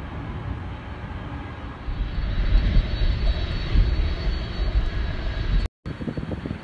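Jet airliner engine noise: a steady rumble that grows louder about two seconds in, cut off briefly near the end.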